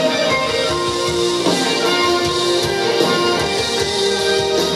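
Live rock band playing an instrumental passage through a concert PA, led by electric guitar over drums.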